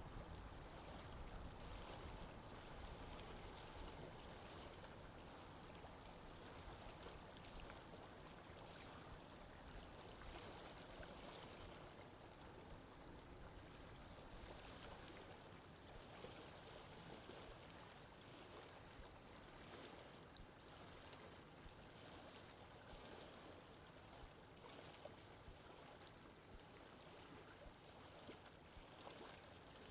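Faint, steady sound of lake water trickling gently, with a low rumble that fades away over the first few seconds.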